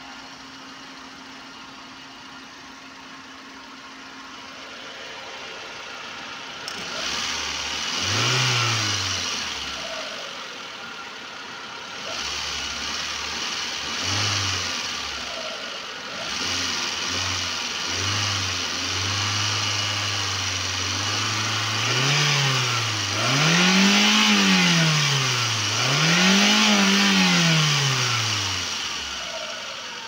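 Hyundai Santro Xing's four-cylinder petrol engine idling, then revved again and again: several short throttle blips rising and falling in pitch, a held higher speed, and two long revs near the end that go highest. A rushing noise joins the engine about seven seconds in. The engine is overheating with its coolant boiling, which is put down to a head-gasket problem.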